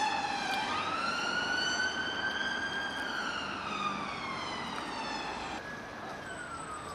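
Ambulance siren sounding a slow wail: the pitch dips, rises sharply about a second in, then falls slowly for several seconds, over street traffic noise.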